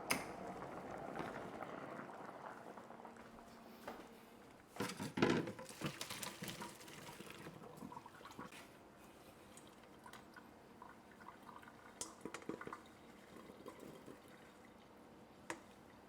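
Boiled potatoes being drained: cooking water poured off from the pot, with a louder pour about five seconds in, then dripping and light knocks of the pot.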